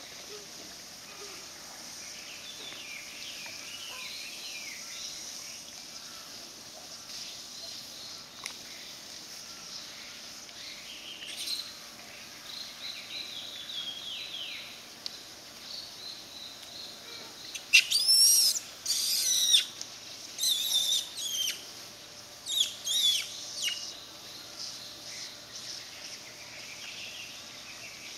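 Birds calling: faint wavy chirps throughout, then a run of loud, shrill, sweeping calls in the second half.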